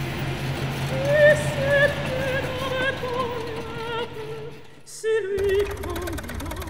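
Background music with a wavering vibrato melody over a steady low hum. The sound dips briefly about four and a half seconds in, then the melody returns over a rougher, rattling rumble.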